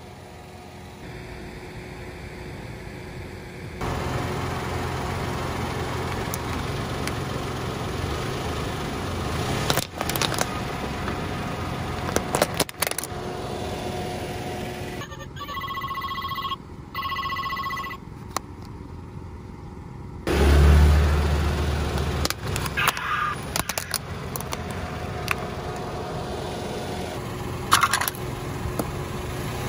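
A car running and rolling slowly over plastic objects, its tyre cracking and snapping them several times over the engine's steady hum. For a few seconds in the middle an electronic beeping like a ringtone sounds, and a loud low thud comes about twenty seconds in.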